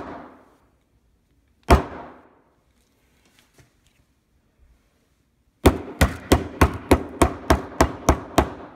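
A hammer striking an old smartphone lying on a concrete floor: one hard blow at the start, another just under two seconds in, then after a pause a rapid run of about fourteen blows, four or five a second.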